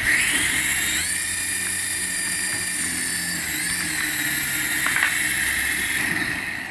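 Jet-engine-style whine that rises in pitch at the start and again about a second in, then holds steady over a hiss, with a slight dip and wobble in pitch near the middle.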